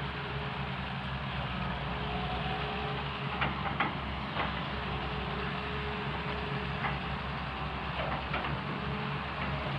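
Cat excavator's diesel engine running steadily, with a scatter of short sharp knocks, the loudest two about three and a half and four seconds in.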